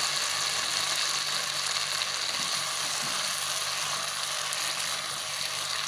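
Crispy flour-coated tofu cubes sizzling in a hot wok of tomato and green chili sauce as a spatula turns them: a steady frying hiss.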